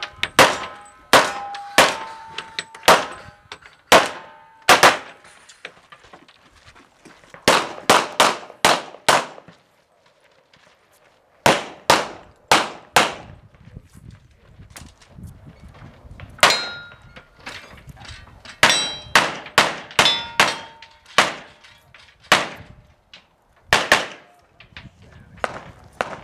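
Handgun fired in quick strings of shots at a USPSA stage, with steel targets clanging and ringing on some of the hits. There is a short break in the shooting about ten seconds in, and the shots resume.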